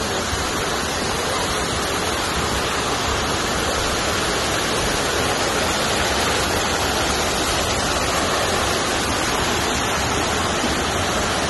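A waterfall rushing, a steady, unbroken roar of falling water.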